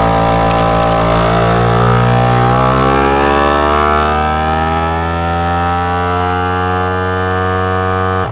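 FoodSaver GameSaver Outdoorsman vacuum sealer's pump running loud and steady as it draws the air out of a bag of fish fillets before sealing. Its pitch rises a little after a couple of seconds, then holds, and it cuts off suddenly at the end.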